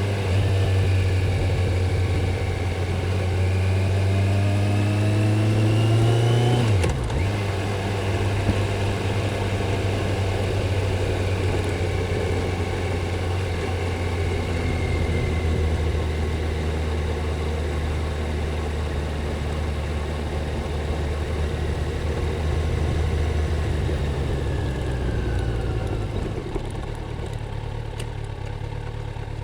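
Stock Kawasaki Z900 inline-four engine and exhaust under way. The revs climb, then drop sharply about seven seconds in, run steady for a long stretch, and fall away near the end as the sound gets quieter.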